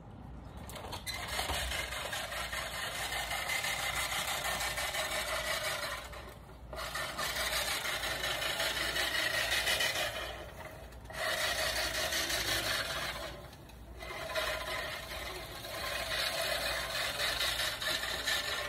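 A rasping, scraping noise in four long stretches of a few seconds each, with short pauses between.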